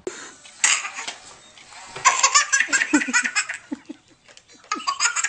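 A baby laughing in repeated bursts: a short burst under a second in, a long string of laughs from about two seconds, and another near the end.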